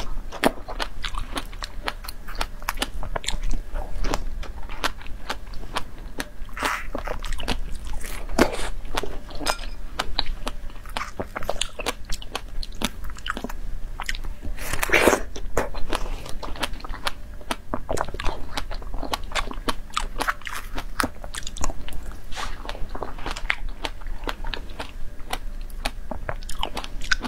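Close-miked biting and chewing of fresh strawberries, a dense run of small clicks and crackles, with a louder bite about halfway through.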